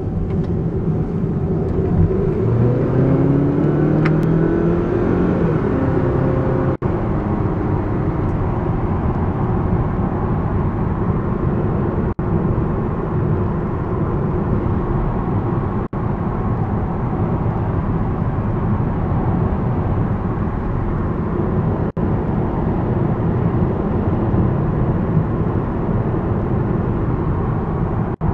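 2011 Kia Optima SX's turbocharged 2.0-litre four-cylinder engine accelerating from 30 to 60 mph, its note rising over the first few seconds, then settling into a steady mix of engine, road and tyre noise at highway speed. The sound cuts out for an instant four times.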